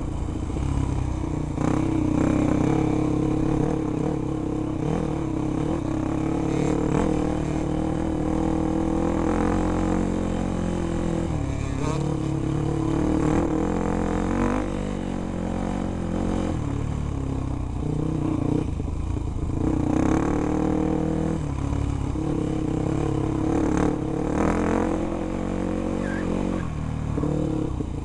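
Enduro dirt-bike engine heard close up from on the bike, its pitch rising and falling again and again as the throttle is opened and closed over rough trail, with a few brief knocks.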